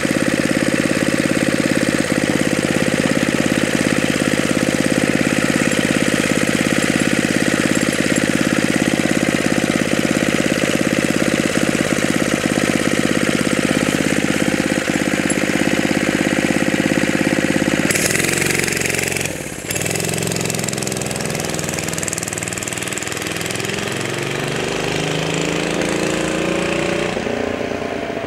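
Small 4 hp Tecumseh engine on a 1966 Falcon mini bike idling steadily, then revving up about two-thirds of the way through as the bike pulls away, its pitch rising and falling and the sound dropping a little as it rides off.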